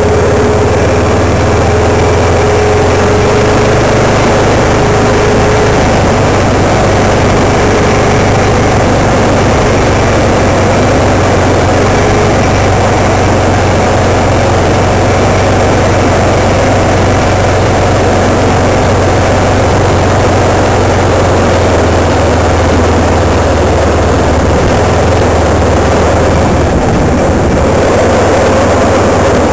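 Vehicle engine running steadily while driving, a low, even drone with no changes in speed. A faint thin whine sounds on and off for about the first twelve seconds.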